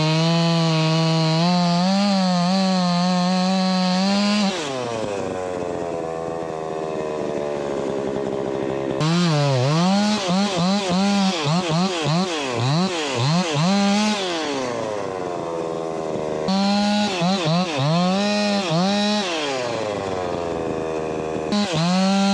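Ported Echo 25T two-stroke top-handle chainsaw held at high revs. It drops to idle after about four seconds, is blipped in a quick run of throttle stabs midway, then goes back to full throttle, idles briefly, and is opened up again near the end.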